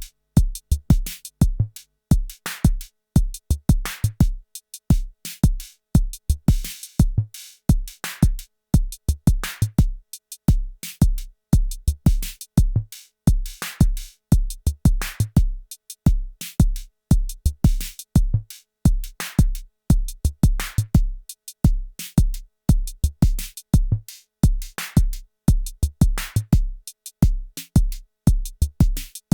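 Arturia DrumBrute Impact analog drum machine playing a steady looping beat: deep kick drum hits several times a second under short snappy hi-hat and snare hits.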